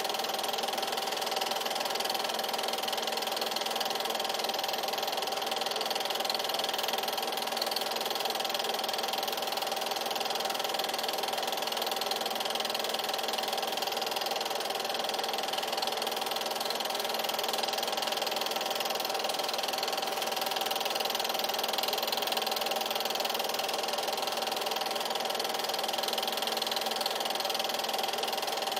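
8mm film projector running: a steady mechanical whir with a constant hum, unchanging in level.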